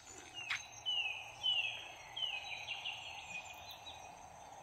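A bird calling: a run of short, falling whistled notes repeated for about three seconds, over a steady background hum. A faint click comes near the start.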